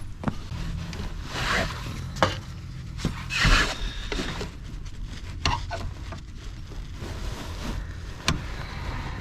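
Hand tools knocking and scraping against the Duramax's fuel filter and its housing as it is worked loose: scattered sharp knocks and short rubbing scrapes, the loudest about three and a half seconds in, over a steady low hum.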